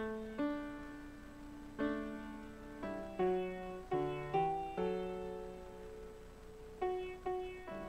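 Solo piano playing a slow, quiet piece. Single notes and chords are struck every second or so and left to ring and fade.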